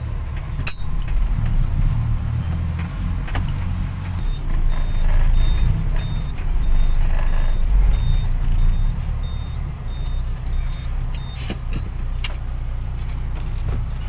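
Dump truck's diesel engine running at low speed, heard from inside the cab, with knocks and rattles of the cab as it jolts over a rough dirt track. From about four seconds in, a repeating high electronic beep sounds for several seconds.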